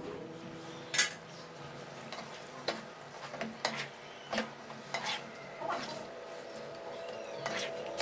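A sharp metal clink about a second in as the steel lid comes off the pan, then a spatula stirring chunks of chicken in a non-stick kadai, scraping and knocking against the pan several times.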